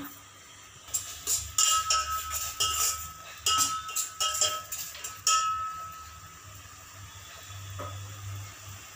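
A spoon stirring grated cucumber in a stainless-steel pot, knocking and scraping against the metal with ringing clinks for about five seconds, then stopping.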